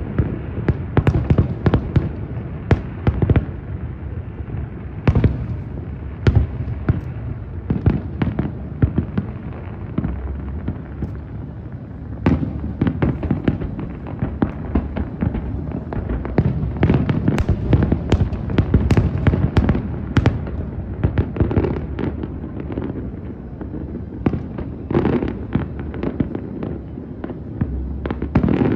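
Aerial fireworks display: a steady barrage of firework shells bursting, sharp bangs coming irregularly and in quick clusters over a continuous rumble of booms echoing off the surroundings.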